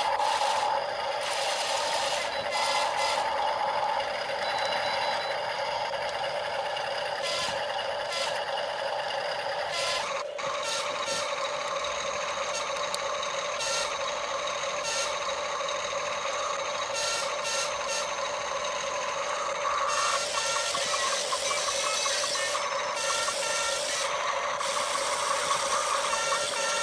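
Small electric motors and plastic gearboxes of toy RC construction machines whining steadily, with frequent clicks and rattles from the moving parts.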